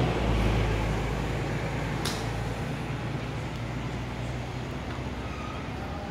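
Low rumble of a motor vehicle engine that starts suddenly and slowly fades away, with a single sharp click about two seconds in.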